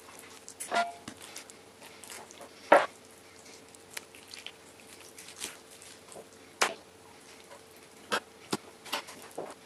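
Irregular sharp knocks and taps of a knife and hands on a plastic cutting board while a raw chicken is cut apart, the loudest a few seconds in, over a faint steady hum.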